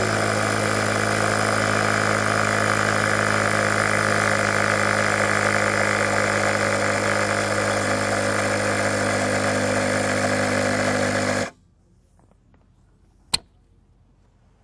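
Sea Eagle two-stage electric turbo pump running steadily as it inflates a kayak chamber, then shutting off suddenly after about eleven and a half seconds: the automatic cut-off at its set pressure of 3.2 psi. A single sharp click follows about two seconds later.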